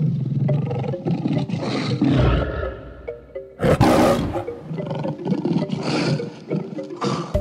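A lion roaring as a film sound effect, in several surges with the loudest about halfway through, over dramatic orchestral background music.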